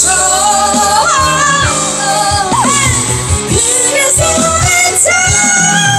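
Live band performance with a lead singer: a slow sung melody over drums, bass and guitar, loud and steady.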